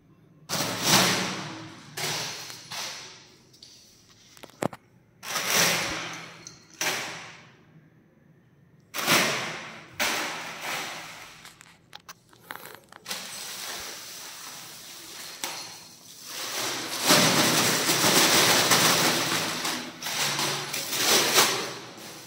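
Thin plastic carry bag rustling and crinkling in irregular bursts as a kitten noses and paws into it, turning into a long, dense stretch of crinkling in the second half.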